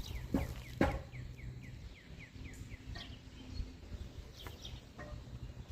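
A bird calling: a quick run of about ten short falling notes, around five a second, that stops about two seconds in. Two sharp knocks come in the first second.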